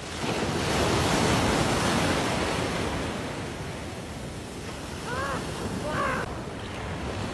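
Ocean waves breaking and washing up a beach, loudest over the first few seconds as a wave breaks, with wind on the microphone. Two short rising-and-falling cries come near the end.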